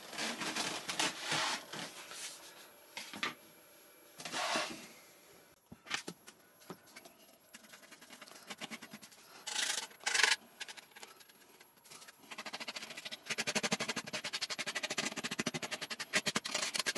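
Small metal file rasping on the foam of a model jet's tailplane, roughing up the joint surfaces for gluing. Scattered scrapes at first, then a run of fast back-and-forth strokes in the last few seconds.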